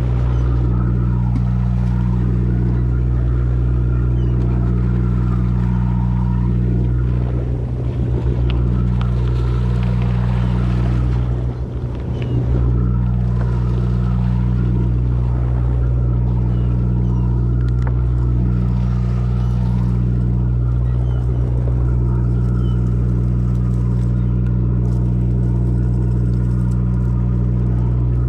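Fishing boat's engine running at a steady, even drone, with a brief dip in level about twelve seconds in.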